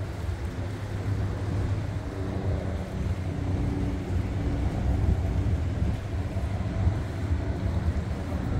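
Wind buffeting the microphone over a low, steady engine drone with a faint hum in it.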